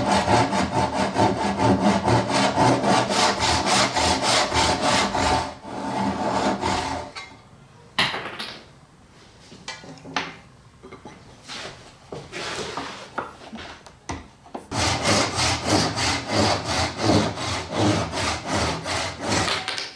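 Hand saw crosscutting hard maple in quick, even strokes, taking the half pins off a dovetail. The sawing stops after about five seconds, leaving a few scattered knocks and handling sounds. Sawing starts again, with a backsaw, for the last five seconds.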